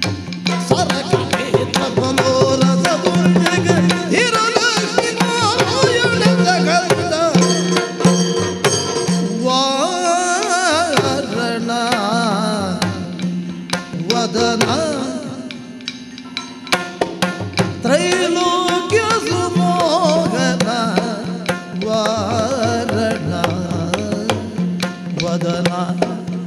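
Yakshagana bhagavata singing a wavering, ornamented verse, accompanied by rapid maddale drum strokes over a steady drone.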